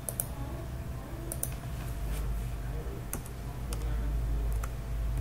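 Computer keyboard keystrokes and mouse clicks, scattered single clicks a second or so apart, over a low steady hum.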